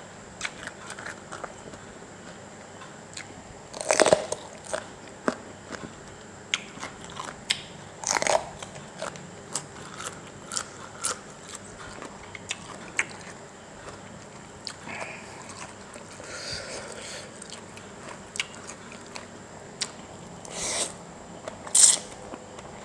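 Close-up eating: a person biting and chewing a spicy instant-noodle salad with vegetables, with soft wet chewing clicks and a few louder crunching bites.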